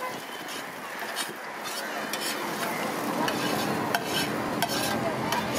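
Metal spatula scraping and clattering across a large flat iron griddle (tawa) as fried prawns are scooped up, over the sizzle of hot oil. The scraping grows louder about halfway through.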